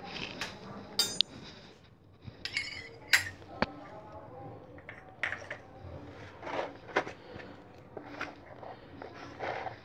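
Kitchenware clinking and knocking: spoons, small spice bowls and a plastic spice container handled around a stainless-steel mixing bowl, in a string of irregular sharp clicks, some with a short metallic ring.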